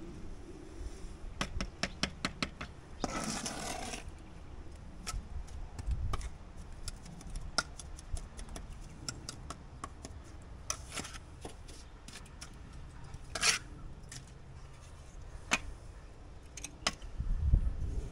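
Scattered light clicks and taps of hand work with small hard objects, with a short scraping sound about three seconds in and another about thirteen seconds in.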